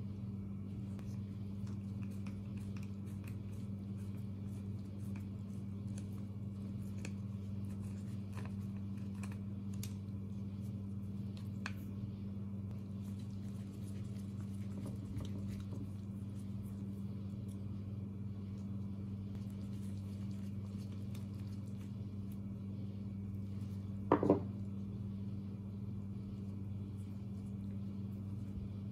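Faint small metal clicks and taps of a screwdriver and chainsaw carburetor parts being handled and unscrewed, over a steady low hum. Near the end, one louder sharp knock.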